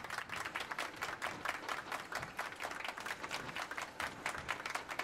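Audience applause: many hands clapping in a dense, even patter.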